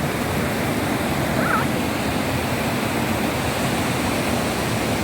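Steady rushing noise of a river's flowing water, with no breaks.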